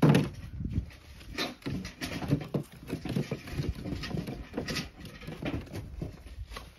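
Irregular knocks and thumps from carrying and handling pails of firewood logs, with a heavy thump right at the start.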